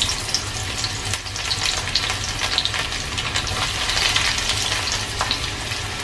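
Chopped onion frying in hot oil in a kadai to make onion-infused oil: a steady sizzle with many small scattered pops.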